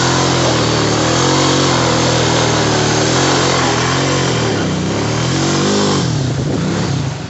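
Honda four-wheeler's engine revving under throttle while spinning donuts in snow. Its pitch holds steady at first, then dips and climbs back twice in the second half.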